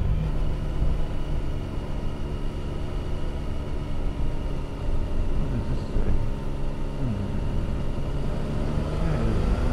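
Triumph Tiger 1050's inline three-cylinder engine running steadily under load on an uphill climb, with wind and road noise over it; near the end the engine pitch starts to rise as it accelerates.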